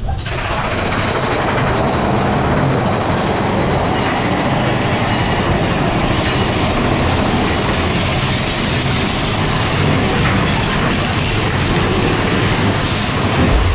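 Big Thunder Mountain Railroad mine-train coaster cars rattling and rumbling along the track at speed, swelling in at the start, with a brief hiss near the end.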